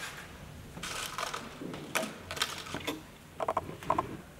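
Scattered light clicks and rustles of hair being handled and pinned up on a head.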